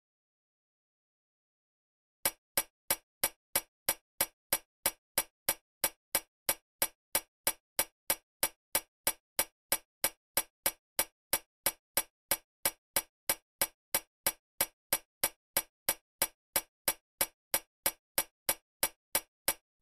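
Evenly spaced sharp ticks, about three a second, like a clock ticking, starting about two seconds in after dead silence.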